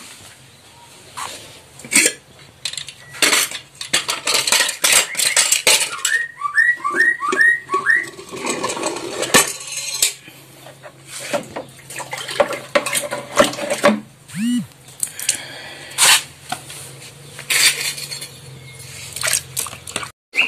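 Metal gas stove burner parts being scrubbed with a brush in water: irregular scraping, knocking and clattering of the parts, with a quick run of high squeaks about six seconds in.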